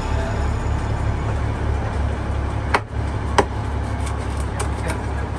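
Steady low engine drone with a few sharp knocks of a knife on a cutting board in the second half, as fish is being cleaned.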